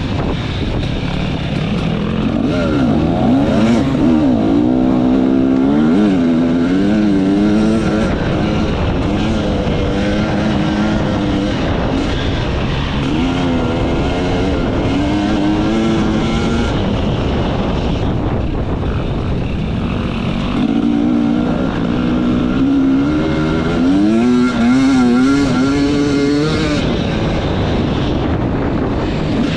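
Enduro motorcycle engine being ridden hard off-road, revving up and dropping back again and again as the throttle opens and closes, over a constant rush of noise.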